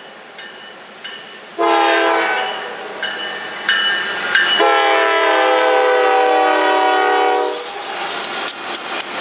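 Diesel locomotive air horn on a GE C44-9W sounding as a freight train approaches: a short blast about a second and a half in, a softer sounding, then a long blast of about three seconds. As the horn stops, the wheels start a rapid clicking over the rail joints as the locomotives pass.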